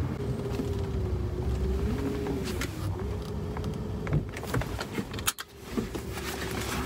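Low rumble and a steady, slightly wavering hum inside a Rolls-Royce Phantom's cabin as it pulls over at low speed, with a few short clicks about four to five seconds in.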